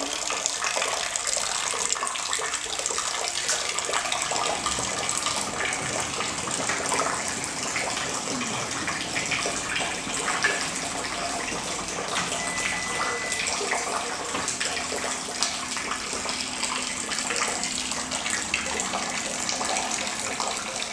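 Water leaking from the ceiling falls in a thin stream into a plastic bucket on the floor: a steady splashing trickle with many small drips.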